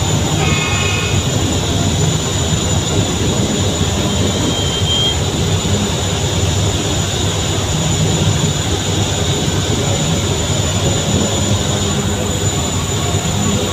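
Steady engine rumble and rushing noise of a passenger river launch under way, with no let-up.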